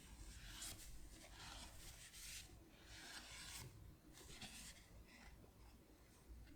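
Faint rubbing and sliding of Pokémon trading cards and pack wrapping handled by hand, in five or six short strokes over the first five seconds.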